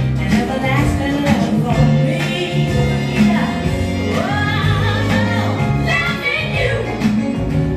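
Recorded dance music with a singing voice and a steady beat, played for jive dancing.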